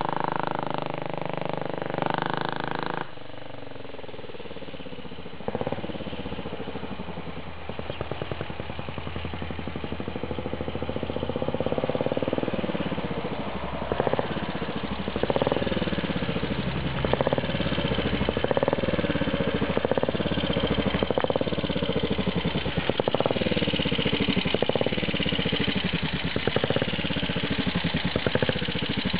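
Velocette MOV 250cc single-cylinder four-stroke motorcycle engine being ridden, its note rising and falling as the rider works the throttle through the gears. It is fainter for a few seconds, about three seconds in, then louder through the second half.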